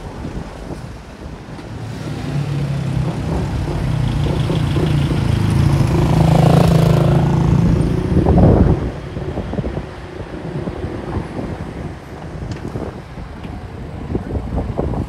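A motor vehicle's engine grows louder as it approaches and passes close about eight seconds in, then drops away, over street traffic noise.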